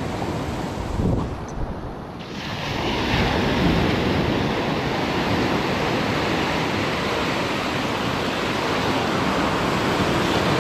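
Ocean waves breaking and surf rushing through the shallows, with wind on the microphone. The wash swells about two seconds in and stays loud.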